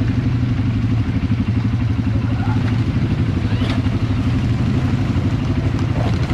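ATV (quad bike) engine running steadily while the quad is ridden, a low, even engine note that holds its pitch throughout.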